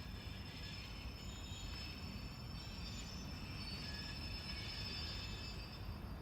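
Steel wheels of a slow-moving train on a spur line squealing, several thin high tones coming and going over a steady low rumble.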